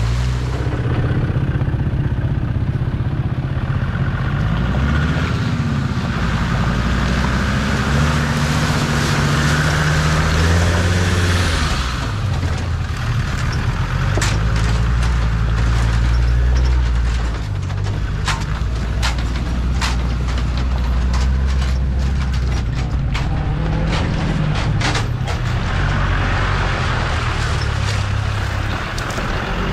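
Td5 five-cylinder turbo diesel engine of a Series 1 Land Rover running under load off-road, revving up and down in surges. Sharp clicks and cracks are scattered through the middle stretch.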